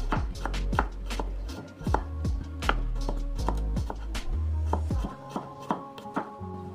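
Kitchen knife slicing garlic and shallots on a wooden cutting board, each cut ending in a sharp tap of the blade on the board, about two to three taps a second.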